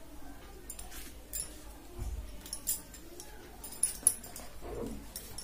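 Faint handling sounds as toothpaste is squeezed from a plastic tube onto a green scouring pad and the pad is set on a plastic mixer-grinder base. Scattered small clicks and rustles, with a soft knock about two seconds in.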